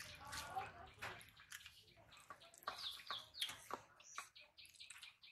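Quiet, wet eating sounds: a person chewing and smacking her lips over rice and curry eaten by hand, a run of small irregular clicks and squelches.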